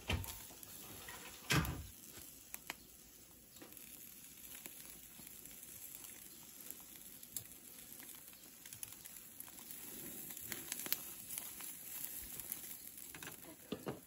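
Whole fish grilling on a wire rack over charcoal, with faint crackling and spitting and scattered small clicks throughout. Two knocks of the tongs against the metal grill rack in the first two seconds.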